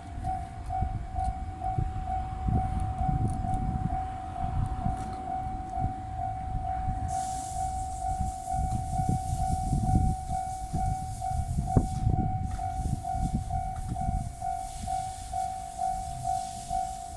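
Japanese level-crossing warning bell ringing in a steady, even pulse while a train passes over the crossing, its rumble swelling and fading with a few sharp knocks from the wheels near the middle.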